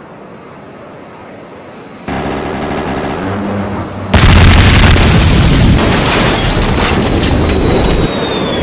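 A loud explosion-like sound effect. A rumbling swell comes in about two seconds in, then a much louder rushing blast about four seconds in that carries on, with a high tone gliding downward near the end.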